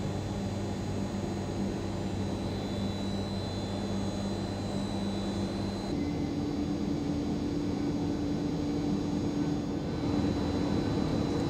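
Steady interior hum of a Siemens NF8 tram, a low electrical drone from its onboard equipment with a faint high whine above it. The pitch of the drone steps up about six seconds in.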